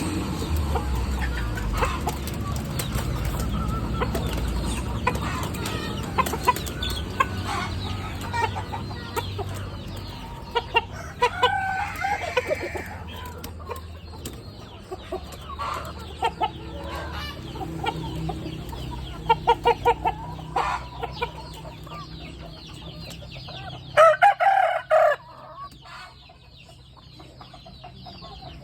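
Domestic chickens clucking, with scattered short clicks and calls, and one loud call near the end.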